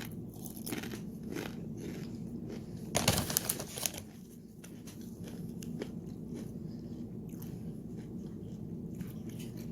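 Eating tortilla chips: scattered short crunches and crinkles, with a louder cluster about three seconds in.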